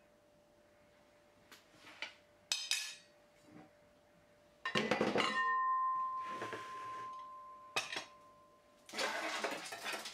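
Dishes handled on a countertop: a plate, a fork and a metal serving platter. There are a few light clinks, then about five seconds in a sharp clink with a ringing tone that fades over about three seconds, and a clatter near the end.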